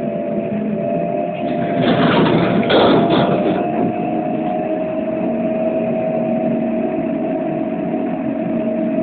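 Inside a moving trolleybus: a steady whine from its electric drive over road and cabin noise, with a brief louder rush of noise about two seconds in that lasts a second or so.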